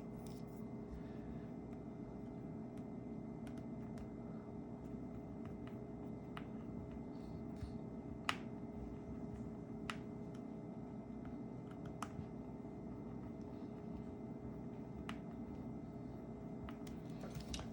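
A few small, sharp clicks and taps of precision repair tools on a phone's small metal and plastic parts, spread irregularly, the loudest near the middle, over a steady low hum.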